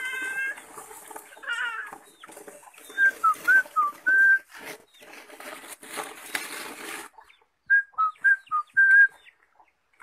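Black-naped oriole whistling its song: two short phrases of about five clear notes each, alternating higher and lower, the first about three seconds in and the second near the end.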